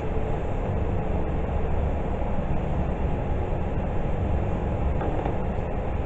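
Steady low rumbling background noise in the room.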